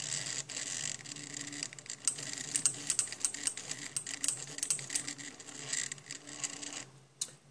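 Small stepper motors of a homemade SCARA pen plotter, run at 12 volts with half stepping, whirring and buzzing in stop-start runs of changing pitch as the arm writes a word. Sharp clicks come through it, many of them between about two and seven seconds, which fit its solenoid pen lifter raising and dropping the pen.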